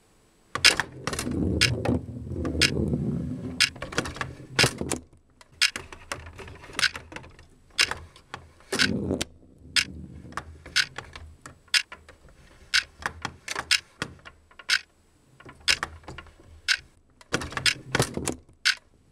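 Table football being played: the ball rolling across the playfield with a low rumble, and irregular sharp clacks of the ball striking the plastic figures and the table. The rumble is heaviest over the first few seconds and again about nine seconds in.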